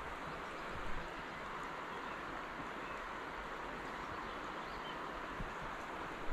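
Steady rush of flowing river water, with a soft knock about a second in.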